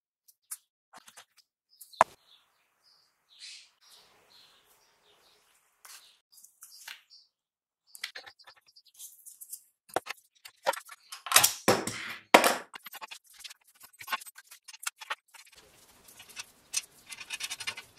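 Small metal clicks and clinks as a scooter wheel on its steel axle is fitted into its fork and a washer and nut are put on the axle by hand. There is a sharp single click about two seconds in, a louder run of clatter a little past halfway, and quick fine clicking near the end.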